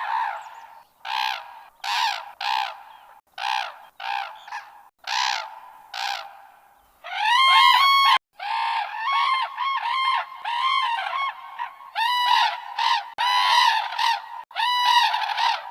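Invented red-crowned crane sound effects: a string of short, harsh crane-like calls about a second apart, then from about seven seconds in a quicker run of cleaner, honking calls.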